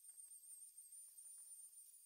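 Near silence, with a faint steady high-pitched whine and a few faint ticks; the router is not running.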